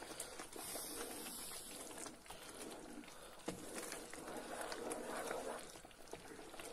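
Thick semolina halva mixture bubbling in a wide pan over a gas flame, faint, with many small pops of bursting bubbles as the semolina starts to thicken.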